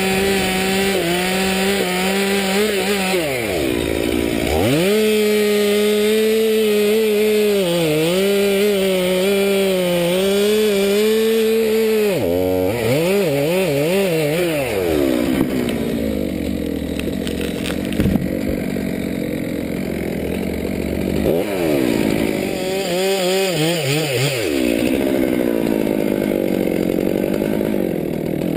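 Stihl MS 200T two-stroke top-handle chainsaw running at full throttle in a cut, its pitch sagging under load and easing off briefly about four seconds in. About twelve seconds in it drops back and is revved up and down several times, then runs at a lower, wavering speed with a couple more throttle blips.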